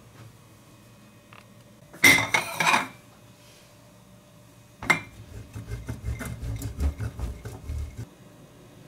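A short clatter of metal against crockery about two seconds in. Then, from about five seconds in, a handheld metal grater rasps through a block of cheese into a glass bowl in quick repeated strokes for about three seconds.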